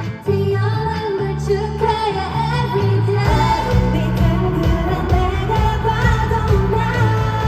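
K-pop song played through the concert PA, with female group vocals over the backing track. The bass and beat come in fuller about three seconds in.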